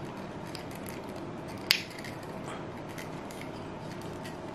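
A GoPro in a plastic Ulanzi case being handled, with one sharp click about one and a half seconds in and a few faint ticks over a steady background hiss.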